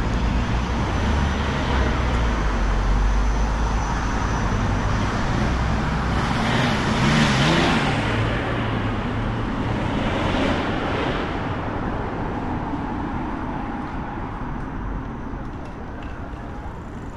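Street traffic: a low car engine rumble, then cars driving past twice, about seven and ten seconds in, with tyre and engine noise swelling and fading. The traffic noise dies down near the end.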